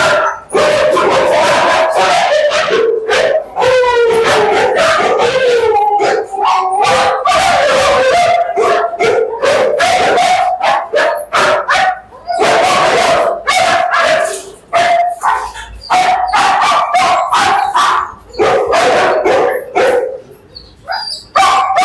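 Several kennel dogs barking and howling together without a break, with long held calls that wander in pitch mixed with many short sharp barks.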